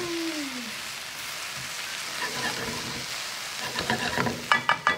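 Vegetables sizzling as they stir-fry in a hot wok, stirred with a wooden spatula. About a second before the end comes a quick run of sharp knocks and clatter from the wok and spatula as the vegetables are tossed.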